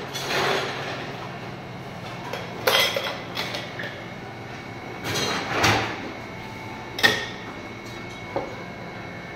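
Metal cocktail shaker tin and glassware being handled on a bar counter: a handful of separate clinks and knocks at irregular intervals, with a low steady room background between them.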